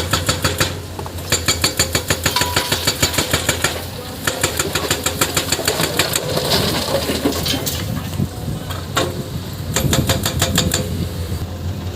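Hyundai PC210 excavator's diesel engine running under load, with bursts of rapid, even metallic knocking, about seven a second, that stop and start several times.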